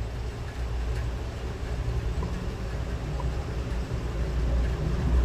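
Steady low-pitched background rumble with a faint hiss, no distinct events.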